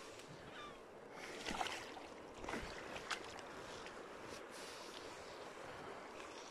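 Steady, faint rush of a fast braided river flowing over gravel, with a few light knocks and clicks between about one and a half and three seconds in.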